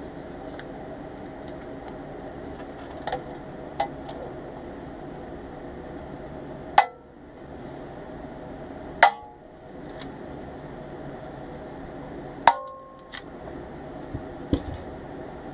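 Hand pop-rivet gun setting rivets in pressed-steel toy loader parts: three sharp snaps as the rivet mandrels break, each with a brief metallic ring. Lighter clicks of parts and tools being handled come earlier.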